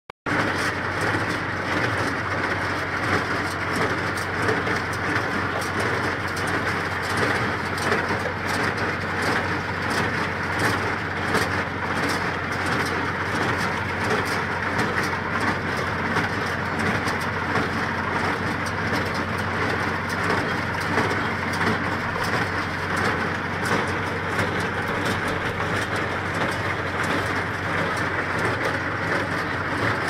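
Deutz-Fahr HD 490 small square baler running steadily as its pickup reel lifts hay from the windrow, a continuous loud mechanical noise mixed with the tractor that tows it.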